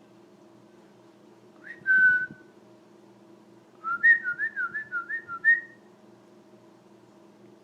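A husky's high-pitched whining. One drawn-out whine comes about two seconds in, then a quick run of about seven short whines that rise and fall in pitch.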